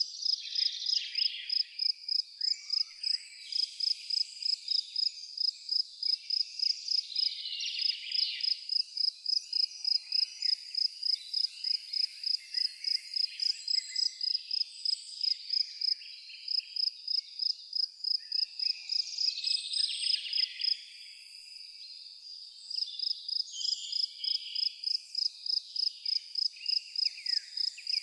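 A cricket chirping in a steady, even rhythm of about three high chirps a second, pausing briefly about three-quarters of the way through. Birds twitter and chirp irregularly behind it.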